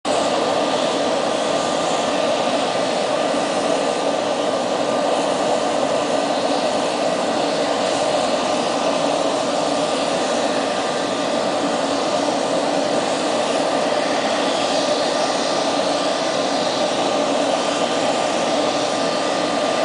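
Steady drone of a turbine running on an airport apron: a dense, even rush with a faint constant high whine over it.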